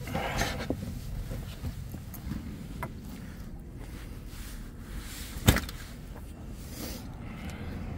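One sharp knock about five and a half seconds in, the loudest sound, over a low steady rumble, with a short scuffling burst near the start.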